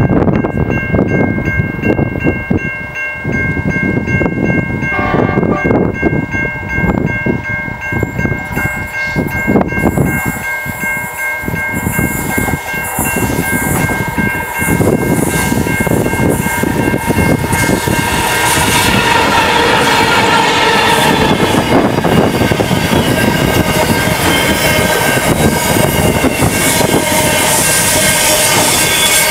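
Freight train approaching along the line and then passing close by. A few steady high tones run through the first half. From about two-thirds of the way in, the container wagons pass with a loud, constant rolling and rattling of wheels on the rails.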